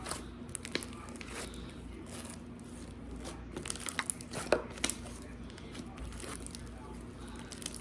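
Slime being squeezed and worked by hand: soft squishing with scattered small clicks and crackles, a few sharper clicks about four to five seconds in.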